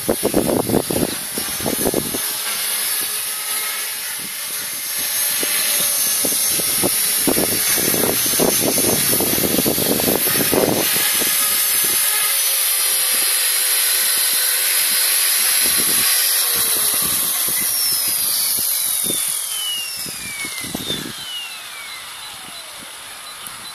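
ALZRC 450-size electric RC helicopter in flight, its brushless motor and rotor giving a steady high whine, with low buffeting on the microphone in the first two seconds and again around eight to eleven seconds in. From about seventeen seconds in, the whine falls steadily in pitch and gets quieter as the rotor spools down after landing.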